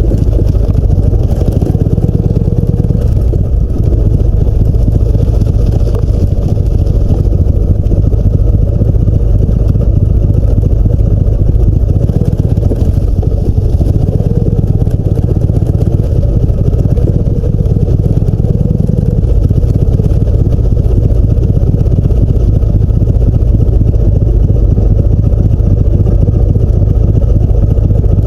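Harley-Davidson V-twin engine running steadily while the motorcycle is ridden, a deep, continuous rumble that swells briefly a few times.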